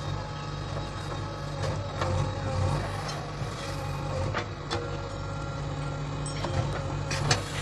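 Diesel engine of heavy farm or construction machinery running steadily, with scattered sharp clanks and knocks.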